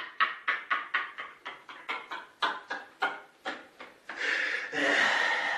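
A man laughing hard in a long run of short breathy 'ha' pulses, about three or four a second, giving way about four seconds in to a longer drawn-out breathy sound.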